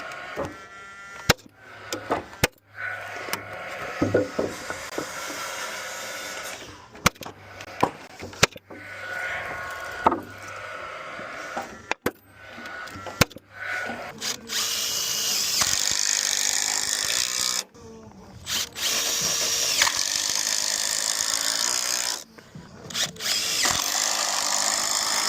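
Carpentry work on timber framing: scattered sharp knocks and clacks of wood and tools, then a power tool running loudly in three long runs of a few seconds each, stopping abruptly between them.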